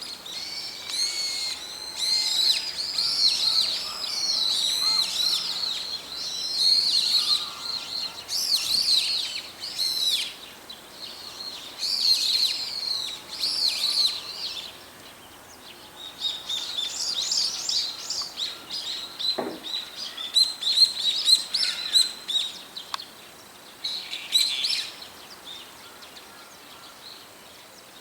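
Several brown-eared bulbuls calling: bouts of loud, high, fluttering and gliding calls with short pauses between them.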